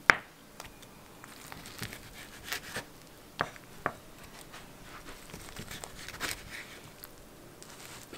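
A knife and fork slice a pan-fried lavash börek on a wooden cutting board. There is a sharp click of metal on the board just after the start, then scattered light taps and faint crackling as the blade cuts through the browned lavash.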